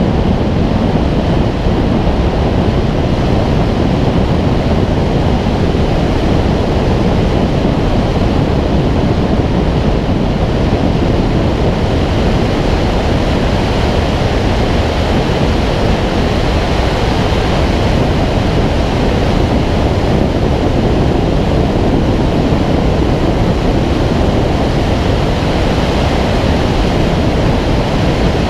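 Steady, loud rush of airflow over a wing-mounted camera's microphone as a Schweizer 2-33 glider flies, with no engine sound; the noise stays even throughout.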